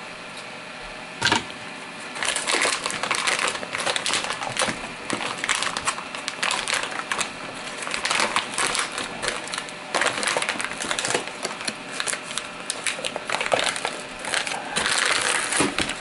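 Clear plastic bag crinkling and crackling in irregular bursts as hands tug and work it loose from a tight fit in the top of a 3D printer, with one sharp click about a second in.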